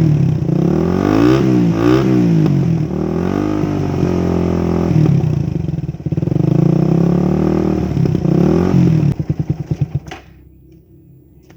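Motorcycle engine through a 51 mm Akrapovic slip-on exhaust with DB killer, revved up and down several times. About nine seconds in it drops to a few slow, uneven firing pulses and stops at about ten seconds, as the engine is switched off.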